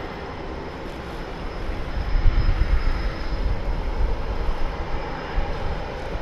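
Boeing EA-18G Growler's twin turbofan jet engines running as the jet rolls along the runway: a steady jet roar with a thin high whine, growing louder about two seconds in.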